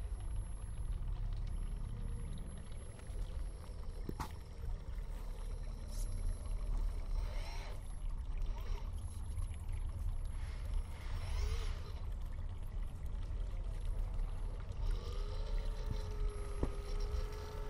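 An Axial SCX24 1/24-scale RC crawler's small electric motor whining as it climbs over rocks, slowed down so the whine sits lower. A few sharp clicks come in the first half, and a steady whine begins near the end, all over a steady low rumble.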